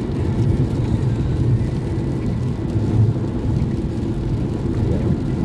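Steady low road and engine noise inside a car's cabin moving along a rain-wet freeway.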